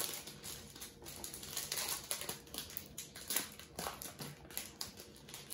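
Plastic foil wrapper of a baseball card pack crinkling as it is torn open and pulled apart by hand, in a rapid, irregular crackle.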